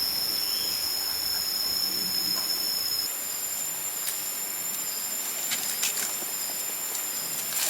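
Insects shrilling steadily in a high-pitched chorus, with the pitch stepping up about three seconds in. A few faint clicks or taps come in the second half.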